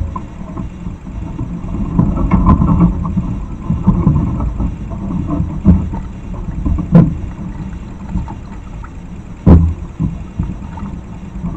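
Roadside hawk bathing in a shallow water basin: splashing and wing flapping in the water, busiest a couple of seconds in, with two sharp splashes standing out about seven and nine and a half seconds in, over a steady low rumble.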